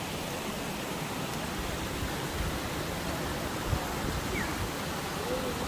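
Steady rush of water from a waterfall or fast-flowing river.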